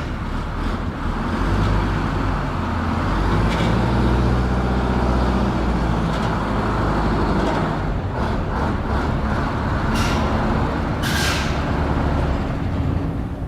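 Bus engine running with a deep, steady drone whose pitch shifts up and down. A short hiss of compressed air, like an air brake, comes about eleven seconds in.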